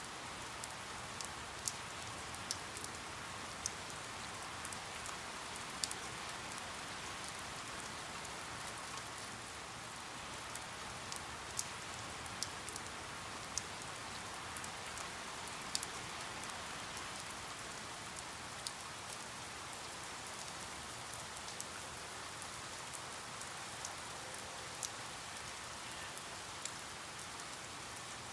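Steady rain falling, an even hiss with scattered sharper drops landing close by at irregular moments.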